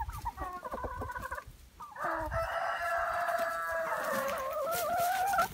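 Hens clucking in short calls for about a second and a half. Then a rooster crows one long crow of about three and a half seconds, its pitch wavering near the end.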